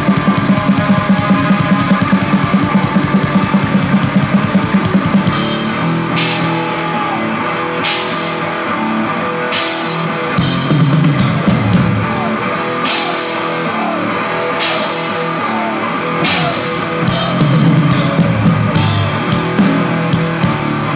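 Black metal band playing live: heavily distorted guitar and bass over a full drum kit. For about five seconds the drumming is fast and even, then it drops to a slower beat with cymbal crashes every second or two.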